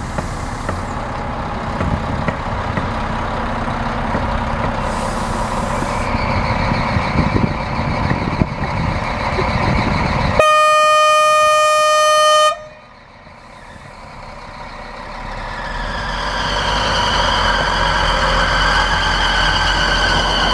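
A red regional diesel railcar approaching a level crossing, its running noise growing. About halfway through comes one loud, steady horn blast of about two seconds that cuts off sharply. Then the train's running noise builds again with a high whine as it passes close by.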